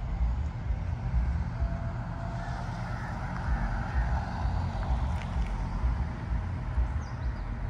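Wind buffeting the microphone in uneven gusts, over a steady outdoor hiss that swells for a few seconds in the middle.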